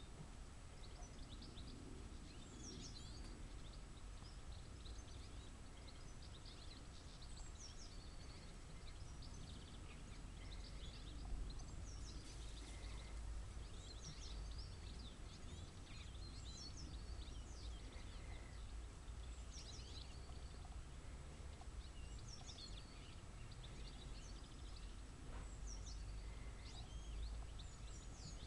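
Small birds chirping and calling faintly in quick, scattered notes over a low, steady background rumble.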